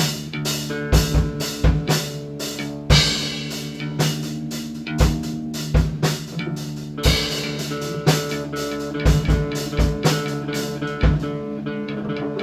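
Live amplified rock band playing: electric guitars through amps holding chords over a drum kit, with kick-drum strokes and a couple of cymbal crashes.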